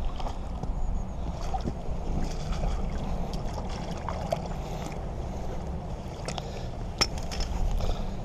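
Wind rumbling on the microphone, with small water splashes and sloshing from a trout being handled in a landing net, and one sharp click near the end.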